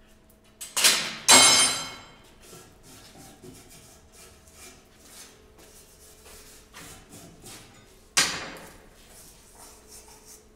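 Metal clanking against a heavy steel worktable as hot steel bar and tools are handled. There are two loud ringing knocks about a second in, a third around 8 seconds, and lighter knocks in between.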